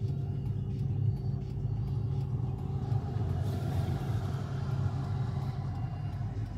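Steady low rumble of a car heard from inside its cabin, with a brief rise in hiss about three to four seconds in.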